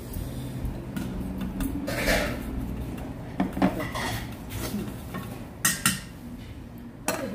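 Metal chopsticks and a ladle clinking and scraping against a stainless steel pot and bowls during a meal, in a handful of separate clinks over a steady low hum.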